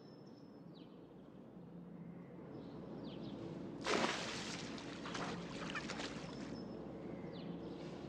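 A cat splashes into a swimming pool about four seconds in, then keeps splashing as it scrambles back out.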